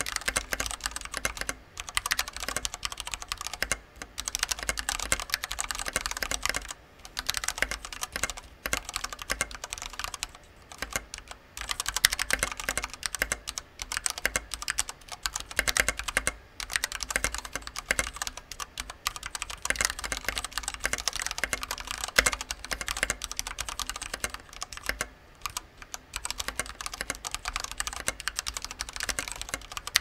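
Continuous fast typing on an IQUNIX F96 mechanical keyboard with Cherry MX Red linear switches and thick PBT KAT-profile keycaps: a dense patter of keystrokes broken by a few short pauses.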